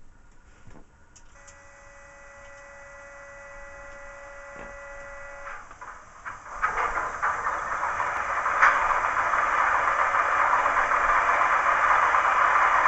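Model Class 31 diesel locomotive's DCC sound decoder playing its engine start-up through the model's small speaker. After a few clicks comes a steady whine for about four seconds, then about six and a half seconds in the engine turns over and fires, its running noise growing steadily louder.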